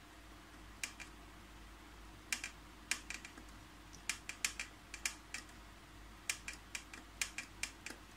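Control-panel buttons of an HP DeskJet 3070A printer clicking as they are pressed, in quick, uneven runs of presses. Someone is keying in trial button combinations to open the printer's hidden service menu.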